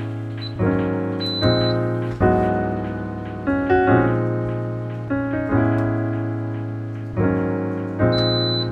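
Background music: electric-piano chords, a new chord struck about every second and a half and each fading away. A short high beep sounds twice, about a second in and near the end.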